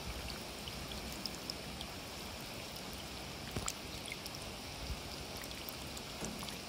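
Rain falling into shallow standing water: a steady patter with individual drops ticking sharply through it.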